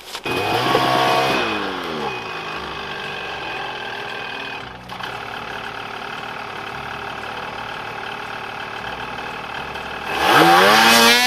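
Snowmobile engine revving, its pitch falling away about a second in, then running at a steady pitch before revving up loudly near the end, its pitch rising and falling repeatedly.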